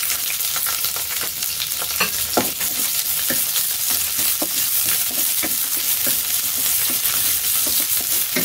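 Ginger slices and shallots sizzling in hot oil in a nonstick wok, stir-fried with a wooden spatula that taps and scrapes against the pan every so often.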